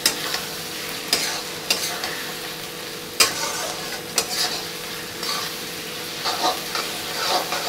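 Chopped onions with ginger-garlic paste and turmeric sizzling in hot oil in a kadhai: the masala is being fried (bhuna) for the base. A metal spatula stirs it, scraping and clicking against the pan every second or so.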